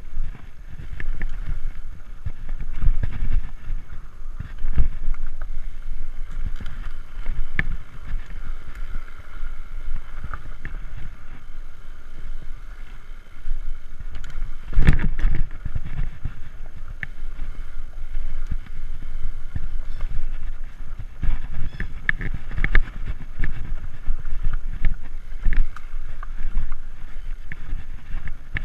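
Framed Alaskan fat-tire mountain bike rolling over a dirt singletrack trail: a steady rumble from the tyres, with irregular rattles and knocks as it hits bumps, and wind on the microphone. The hardest jolt, about halfway through, is the loudest knock.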